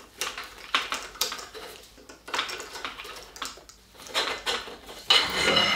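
A 4 mm hex key working the stem clamp bolts of a mountain bike: scattered metallic clicks and clinks as the bolts are loosened, with a brief ringing metallic scrape near the end.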